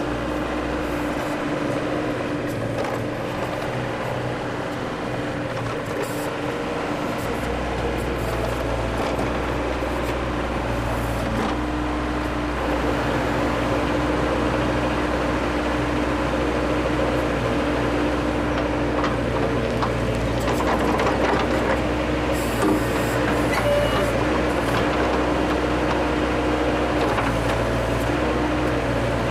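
Bobcat 763 skid-steer loader's diesel engine running steadily while it works a backhoe attachment digging a hole. Its note and load shift a few times as the hydraulics work.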